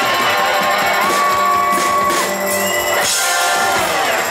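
Live band playing: electric guitars and drums with long held notes that slide in pitch, and a fuller chord struck about three seconds in.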